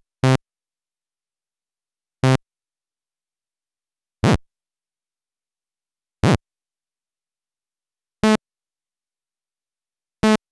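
Korg iMS-20 synthesizer app playing six short pitched notes, evenly spaced about two seconds apart. Each note is a fraction of a second long, and its pitch and tone shift from note to note as the fart-sound patch is being shaped.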